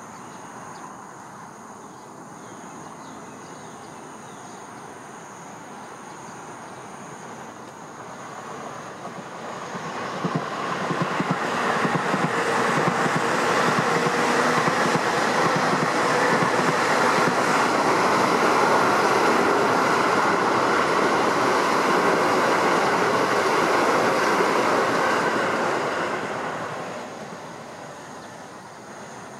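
Keio Line electric commuter train passing: its noise builds over several seconds, runs loud and steady for about a quarter of a minute, then fades away near the end. Insects shrill steadily in the quieter stretches before and after.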